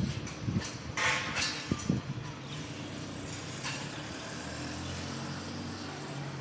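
Metal scaffolding clanging as workers throw it down while dismantling it: a loud ringing clatter about a second in and a couple of sharp knocks, then a steady low engine hum.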